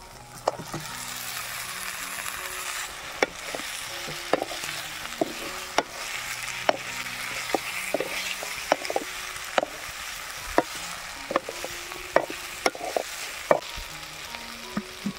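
Chicken with spices and vegetables sizzling as it fries in a pan. It is stirred throughout, and the utensil knocks sharply against the pan about once a second.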